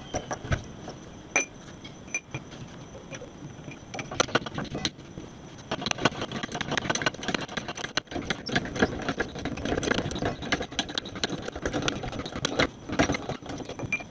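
Hydraulic bottle jack being pumped by its handle while it presses down on a car tyre's sidewall to break the bead: a few separate knocks at first, then a dense run of rattling clicks and knocks from about four seconds in until near the end.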